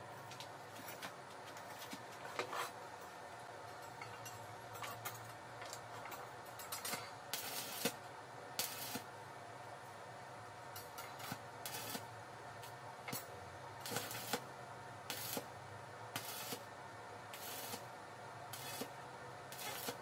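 Stick-welding arc tack-welding steel tines onto a steel pipe handle, crackling in a string of short bursts about once a second through the second half, over a steady low hum. A few light metal clinks come before the welding starts.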